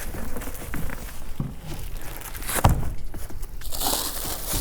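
Rustling and crinkling of ice and water shield roofing membrane being handled, with one sharp thump about two and a half seconds in.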